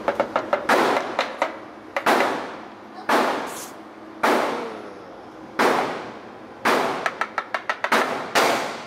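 Gunfire echoing in an indoor shooting range: about six loud single shots roughly a second apart, each with a long reverberating tail, mixed with quick strings of sharper, quieter shots near the start and again near the end.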